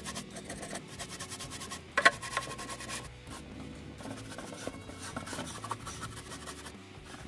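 Stiff-bristled brush scrubbing a wet plastic radio case in rapid, scratchy strokes. There is a sharp knock about two seconds in.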